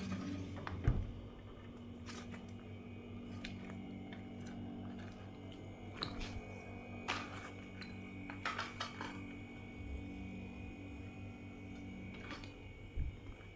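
Refrigerator compressor running, charged with LPG as a refrigerant substitute, with a steady low hum and a faint high whine, while the evaporator is starting to cool. Scattered light clicks and taps of handling sound over it.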